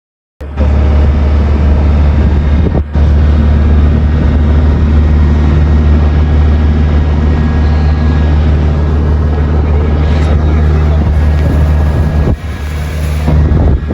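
An engine running steadily and loud, with a strong low hum, cutting in abruptly at the start and dipping briefly about three seconds in and again near the end.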